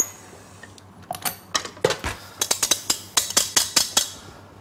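Stand mixer's stainless steel bowl and wire whisk attachment clinking and knocking against each other as they are taken off the machine: a quick run of sharp metallic taps starting about a second in, thickest near the end.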